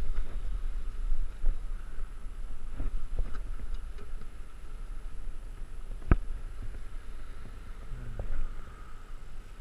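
Wind buffeting the camera microphone in gusts at the top of the tall chimney, heard as a low rumble. A single sharp click comes about six seconds in.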